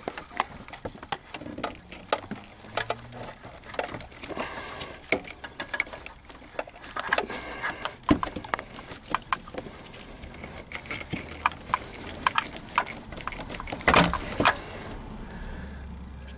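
Plastic wiring-harness connectors being worked loose from the back of a factory car radio's metal chassis: many sharp clicks and knocks with handling rattles, the loudest cluster near the end.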